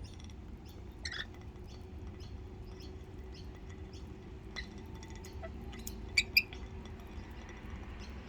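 Rainbow lorikeets giving short, high, squeaky chirps: a few scattered ones, then two sharper chirps close together a little after the middle, with faint small clicks between.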